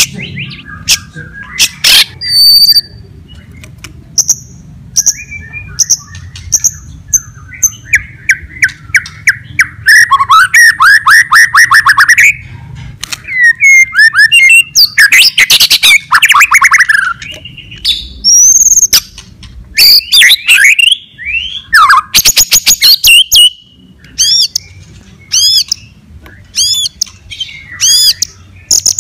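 White-rumped shama (murai batu) in full, loud song, mixing high whistled notes, fast clicking rattles and runs of falling, sweeping notes, with no pause longer than a moment.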